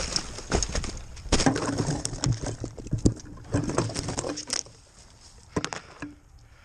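Close handling noise of a crashed FPV quadcopter being picked up out of snow and twigs: rustling, scraping and a rapid run of knocks and clicks right on the onboard camera's microphone, dying down near the end.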